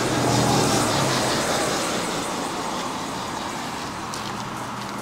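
A vehicle passing by: a rushing noise with a low hum, loudest about half a second in and slowly fading away.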